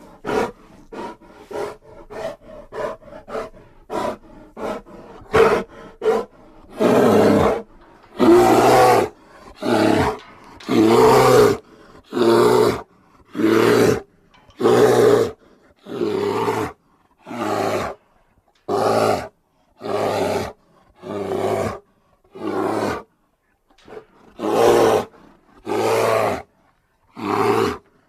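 Grizzly bear roars played as a sound effect. About six seconds of rapid short calls, several a second, give way to a series of long roars, each about a second long and coming roughly every second and a half.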